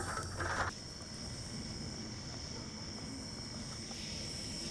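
Crickets chirping in a steady, high-pitched trill, after a brief noise at the very start.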